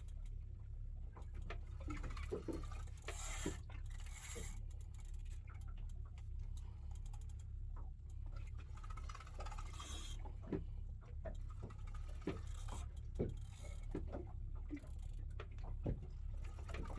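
Irregular small clicks, taps and rustles of a fishing rod and reel being handled while a hooked fish is played, over a steady low rumble, with a few brief hissing bursts.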